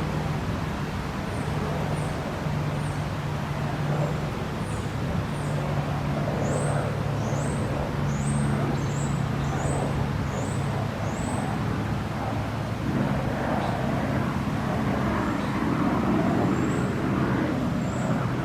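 Steady traffic rumble mixed with the rush of creek water, with a low engine hum underneath. Over it a small bird gives a run of short, high, falling chirps, one or two a second, for most of the first half.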